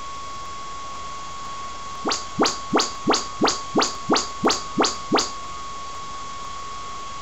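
Audyssey room-calibration test signal from an Onkyo AV receiver played through a loudspeaker: about ten quick rising chirp sweeps, low to high, roughly three a second, starting about two seconds in, over a faint steady high whine.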